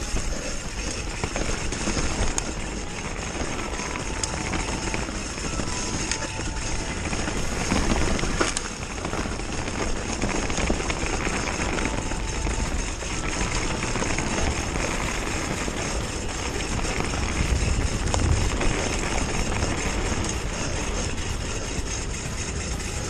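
Mountain bike riding a dirt trail: a steady rush of wind on the helmet or handlebar camera's microphone, mixed with the tyres rolling and the bike rattling over the ground.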